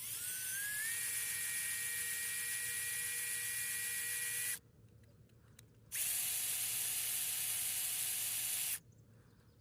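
Makita electric drill running in two bursts with a steady whine, drilling out the rivets of a die-cast toy truck. The first burst spins up at the start and runs about four and a half seconds. After a short pause, a second, lower-pitched burst runs about three seconds.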